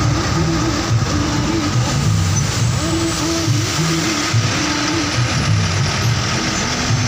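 A motor vehicle on the move, with steady engine and road noise and a low hum that swells and fades every second or so.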